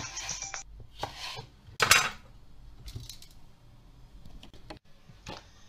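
A knife knocking and clicking on a wooden cutting board as hot chili peppers are cut, a few separate strikes with one loud knock about two seconds in.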